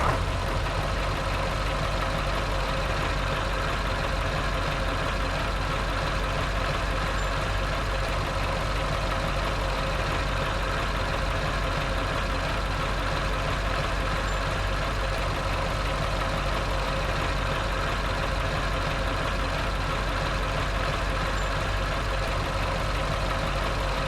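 A steady engine-like idling drone with a low hum, unchanging throughout.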